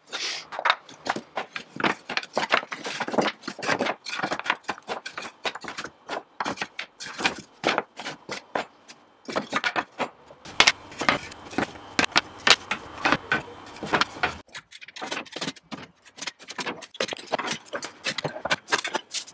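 Wooden boards clacking and knocking against one another and the bench as they are picked up and laid down, in quick, irregular strikes.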